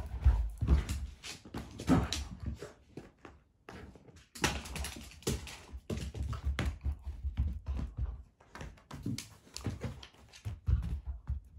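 A beagle scrabbling and padding on a hardwood floor and a rug, with irregular taps, thumps and scuffs. There is a quieter pause about three to four seconds in.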